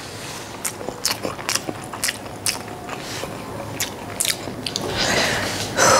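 Close-up mouth sounds of a person chewing food: irregular wet clicks and smacks a few times a second, with a louder breathy rush near the end.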